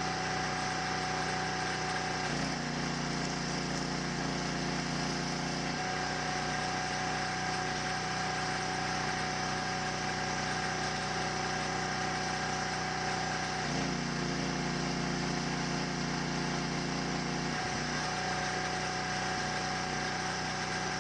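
A machine running steadily with a hum of several constant tones. Twice, for about three and a half seconds each, a lower drone joins it: once about two seconds in and again about fourteen seconds in.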